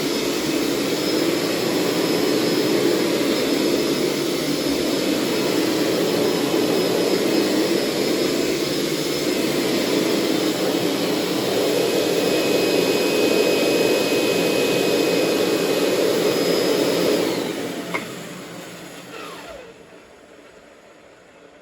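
Hoover SteamVac Plus carpet cleaner running steadily with a loud, high-pitched whine. About 17 seconds in it is switched off, and the motor winds down with a falling whine, with a sharp click partway through.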